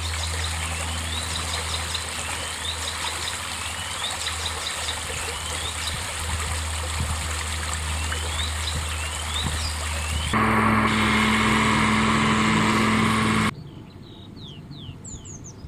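A small forest stream rippling over stones while a songbird repeats a short rising phrase every couple of seconds. About ten seconds in, a louder steady drone with a held low tone takes over for about three seconds, then cuts off suddenly to quieter outdoor sound with brief high bird chirps.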